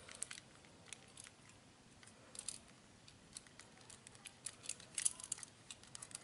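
Light, scattered clicks and taps of a plastic smartphone holder clamp being handled and fitted onto a mini tripod, coming more often near the end.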